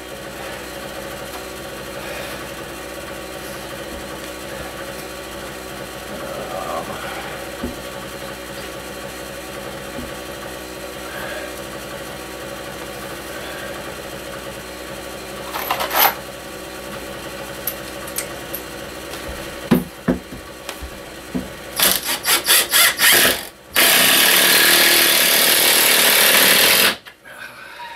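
Cordless drill/driver driving screws into a wooden cabinet frame: a few short pulls of the trigger near the end, then one loud run of about three seconds as a screw goes in.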